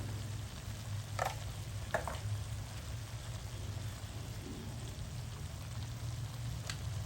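Food stir-frying in a hot pan with a steady sizzle. Two short utensil strokes against the pan come about one and two seconds in, and a steady low hum runs underneath.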